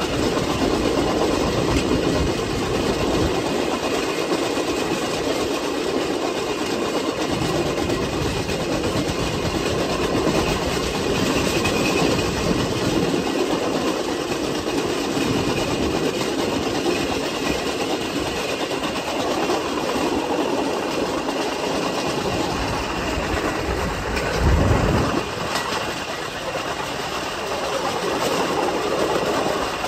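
Steel wheels of a vélorail (rail bike) rolling along the rails, a steady rolling noise with clacks over the rail joints. A short low thump comes a few seconds before the end.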